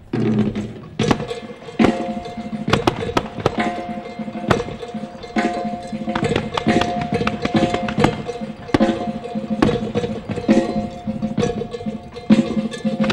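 The show's music soundtrack: held notes under frequent sharp percussive hits, at a steady moderate level.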